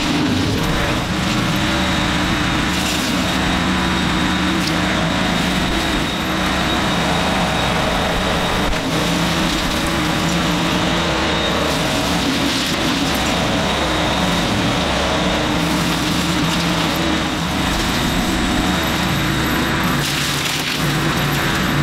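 Tractor diesel engine running steadily under load, driving a Baumalight CP560 four-blade rotary brush cutter through brush and small trees.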